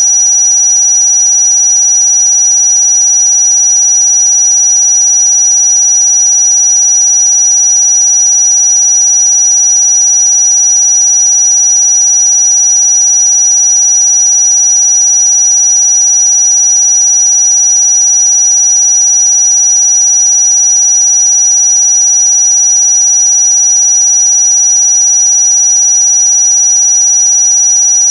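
Loud, steady, high-pitched electronic tone, held unchanged throughout, with fainter lower tones sounding beneath it.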